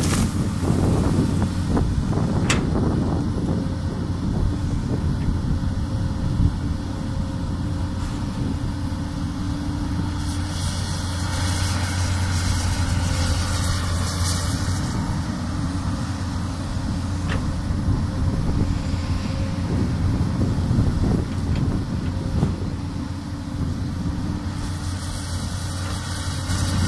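Komatsu PC200 excavator's diesel engine running steadily under work, with a few sharp knocks in the first couple of seconds and stretches of hiss in the middle and near the end.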